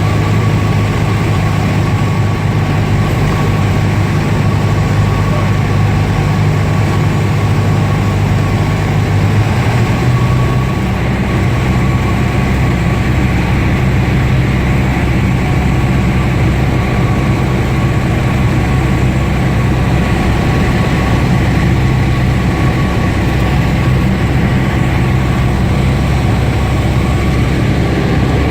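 Single piston engine and propeller of a 1976 Cessna light plane running with a steady drone; the engine note changes about ten seconds in.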